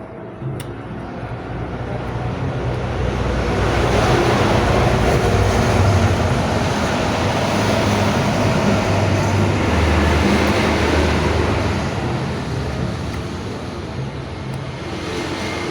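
A vehicle passing by: a rumbling noise that builds over a few seconds, stays loud, then fades away.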